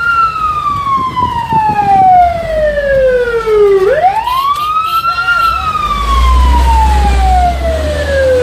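Fire truck's siren wailing, heard from inside the cab: a long falling glide, a quick rise about four seconds in, then another long fall. Under it the truck's engine rumbles, louder from about six seconds in.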